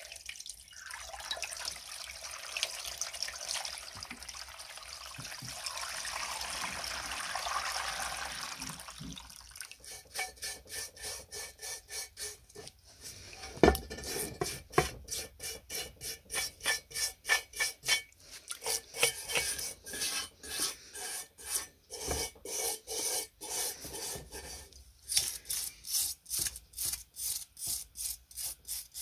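Water from a hose pouring over a cast-metal tray for roughly the first nine seconds. Then a small stiff brush scrubs the wet metal in quick back-and-forth strokes, with one sharp knock about halfway through.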